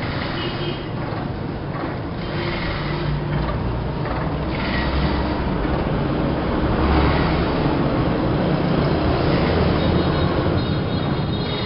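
Plastic-bag cutting and crushing machine running, a steady dense mechanical noise with a low hum, growing a little louder about halfway through.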